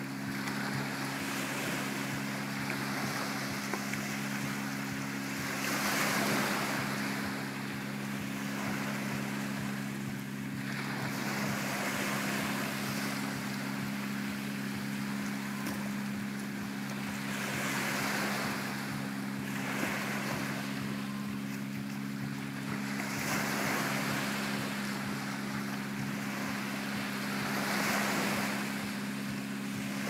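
Small Mediterranean waves lapping and breaking on a sandy shore, the wash swelling every four to five seconds, over a steady low hum.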